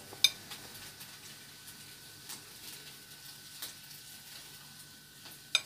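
Bamboo skewers of grilled pork set down on a ceramic plate: a sharp clink with a short ring about a quarter second in and another near the end, over faint crackling.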